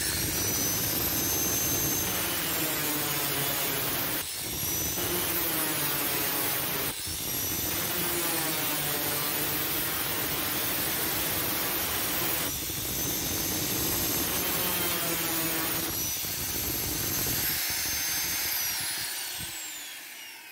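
Angle grinder with an abrasive cut-off disc cutting through a square steel tube, running with a steady high whine. The sound dips briefly a few times as the cut goes on, and the motor winds down with a falling whine near the end.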